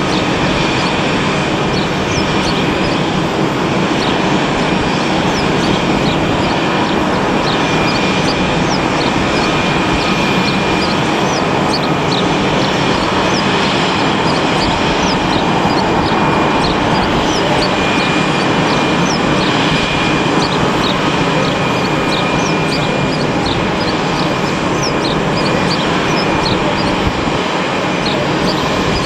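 Steady, loud roar of airliner jet engines at the airfield, with many short high chirps over it.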